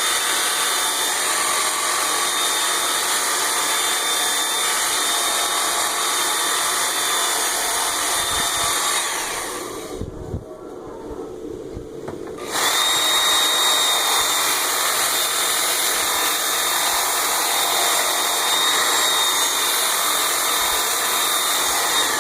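Work Sharp Ken Onion Edition belt sharpener running with a fine Norax X22 belt against an axe's bevel: a steady motor and belt hiss with a thin high whine. It winds down about nine seconds in and starts up again suddenly about three seconds later.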